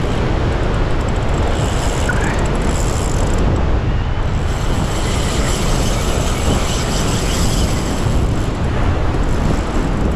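Surf breaking and washing over coastal rocks, a loud, steady rush heaviest in the lows, with wind buffeting the microphone.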